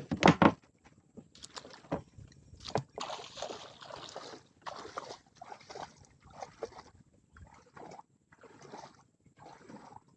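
Water sloshing in a series of strokes, roughly one a second, after a sharp knock at the very start.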